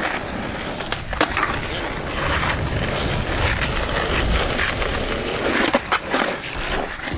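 Skateboard wheels rolling on asphalt, a steady grinding roll, with a sharp clack about a second in and a few hard clacks near the end as the board hits the concrete curb.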